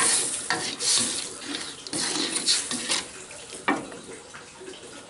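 A spatula stirring and scraping in an aluminium wok of sautéed spices with a little coconut milk, the liquid sizzling. Several sharp scrapes against the pan, the sizzle dying down toward the end.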